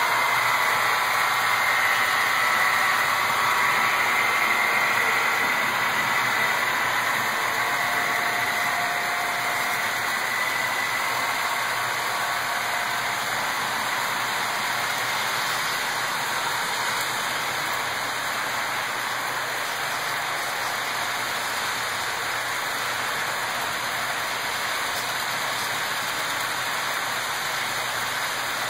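HO scale model freight train rolling past on the layout track: a steady rolling hiss of wheels on rail. A faint whine is heard during the first several seconds and fades away.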